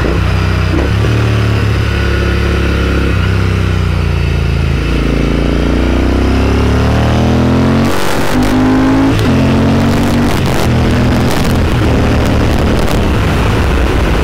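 Royal Enfield Interceptor 650's parallel-twin engine running under way through aftermarket AEW mufflers, heard from the rider's seat. Its pitch changes in steps and rises in a long climb around the middle. Wind buffets the microphone from about eight seconds in.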